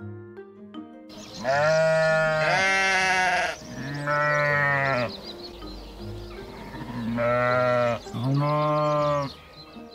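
Sheep bleating: a series of long bleats, with a pause of about two seconds midway.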